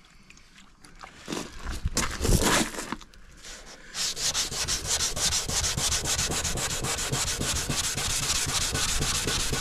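Hand sanding a fibreglass bumper with a 320-grit sanding disc held under the fingertips. A few brief scuffs early, then from about four seconds in a steady run of rapid back-and-forth rubbing strokes.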